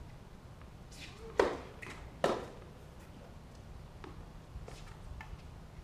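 Two sharp pops of a tennis ball struck by racquets, less than a second apart, followed by a few fainter taps.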